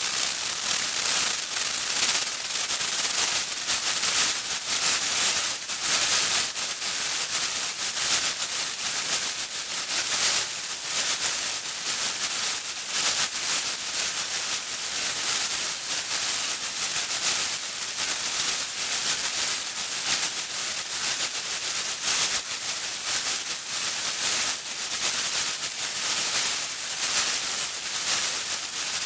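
Radio static: continuous crackling hiss, strongest in the highs, with quick flickers in level and a faint steady tone underneath.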